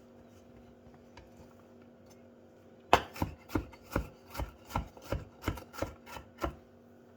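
Kitchen knife chopping onion on a cutting board for a fine dice: after a pause, a run of about a dozen quick strikes, roughly three a second, the first the loudest.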